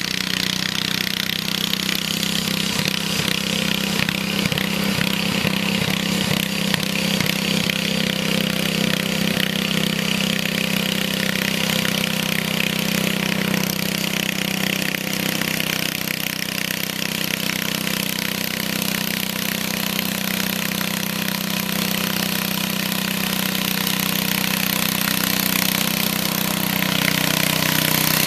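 Small garden-tractor engine running at high, steady revs, with a chainsaw-like buzz that grows a little louder near the end.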